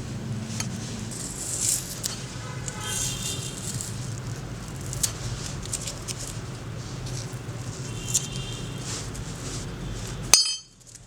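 Metal parts of hand pruners clinking and rattling as they are handled, with a few short ringing tones, over a steady low hum. The sound cuts off abruptly near the end.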